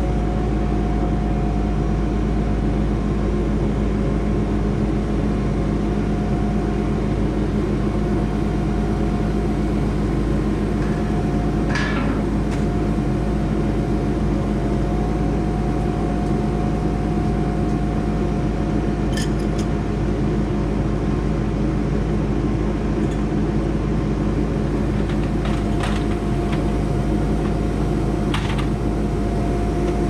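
Skid steer engine running steadily at constant speed, with a few brief clicks.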